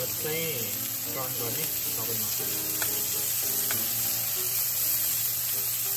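Pork cubes sizzling in hot oil in a stainless-steel frying pan, a steady hiss. Metal tongs stirring and turning the pieces give a few sharp clicks against the pan around the middle.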